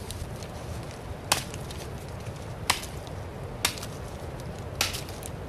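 Large bushcraft knife chopping into small wood: four sharp chops roughly a second apart, with a fainter tap near the end.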